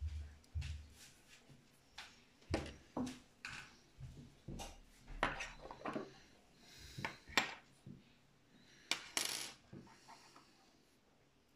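Irregular clicks, taps and light metallic clinks from a small metal hand tool and small parts being handled on a tabletop while working on a plastic RC tank's running gear.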